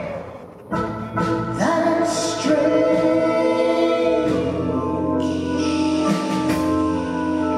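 A live rock band plays a slow song, with held chords under a sung vocal line. The sound drops off briefly in the first second, then the band comes back in and holds steady.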